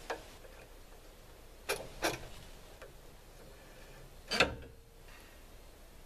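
A few light clicks and knocks from hands working the auto water lube kit's slam-latch actuator, throttle cable and plastic water line on a Norwood sawmill head: two close together about two seconds in, and a sharper one a little past four seconds. The actuator is being adjusted because it does not yet pinch off the water.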